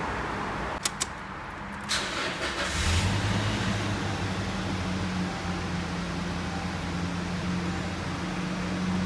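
Two sharp clicks, then a Toyota Hilux engine starting about three seconds in and settling into a steady idle.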